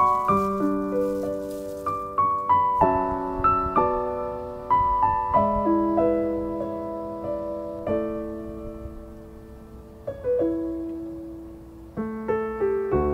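Background solo piano music: a slow line of single notes and chords, each struck and left to ring out.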